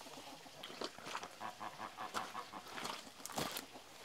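Chickens clucking and calling, mixed with scattered short scuffs and knocks, the loudest about three and a half seconds in.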